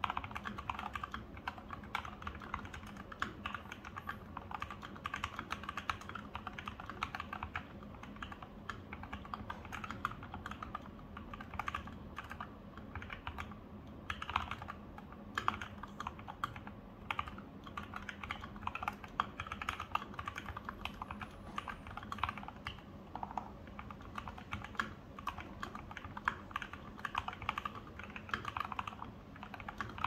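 Continuous fast typing on an FL Esports MK870 tenkeyless mechanical keyboard with lubed Durock Lavender switches, PBT keycaps and a stainless steel plate: an unbroken, even run of keystroke clicks, recorded on a phone.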